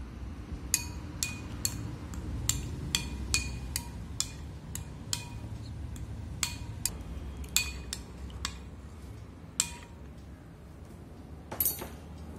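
Steel spoon clinking against a glass bowl while cream is spooned in and stirred: sharp ringing clinks about two a second, stopping about ten seconds in, with a brief clatter near the end.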